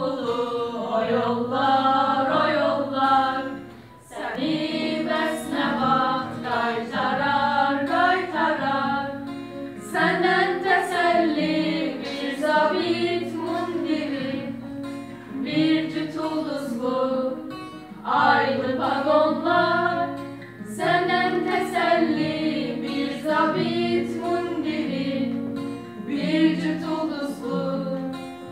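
A small group of girls singing a song together, accompanied by an acoustic guitar, in phrases with short breaks between them.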